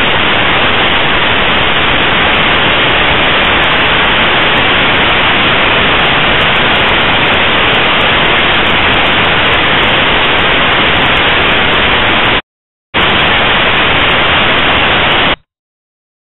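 Loud, steady static hiss with no other sound in it. It cuts out for a moment about twelve seconds in, resumes, then stops abruptly about three seconds later.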